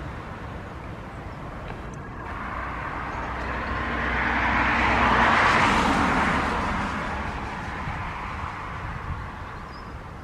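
A Boeing 737 MAX 8's CFM LEAP-1B jet engines at takeoff power on the departure roll. The rushing jet noise swells to a peak about five to six seconds in as the aircraft passes, then fades away.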